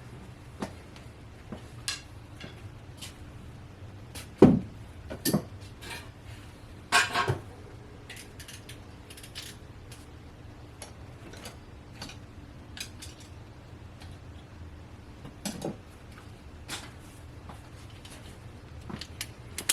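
Metal hand tools clinking and knocking at irregular intervals, with a few louder knocks; the loudest comes about four and a half seconds in.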